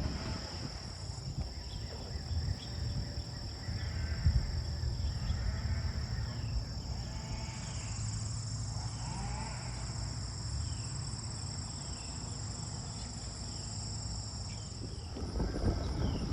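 Steady insect chorus, a continuous high trilling at two pitches, with faint short chirps now and then and a low rumble underneath.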